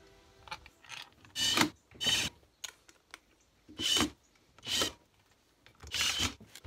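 Cordless drill-driver spinning screws on a Honda XLR 125 engine's side cover, run in five short bursts of about a third of a second each, mostly in pairs.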